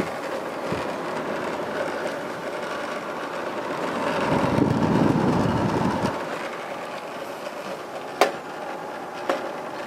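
Electric fan running: a steady mechanical noise that swells to its loudest about halfway through, with a deeper rumble, then eases, with two sharp clicks near the end.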